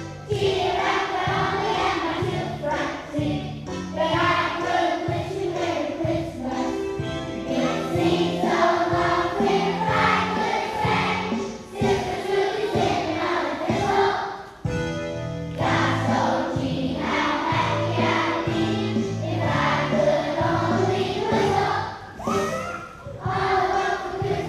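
A student choir singing a holiday song with instrumental accompaniment.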